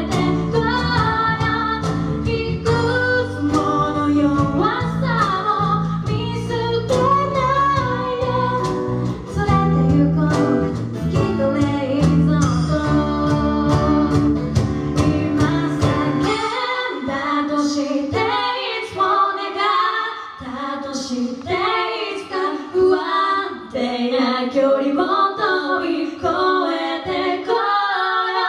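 Two female voices singing a song live in harmony over an instrumental backing; a little past halfway the backing drops out and the voices carry on a cappella.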